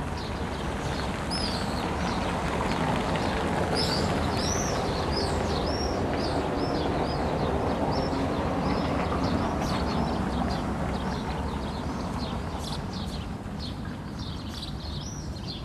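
Small birds chirping, a quick run of short high-pitched chirps, over a steady low rumble of background noise.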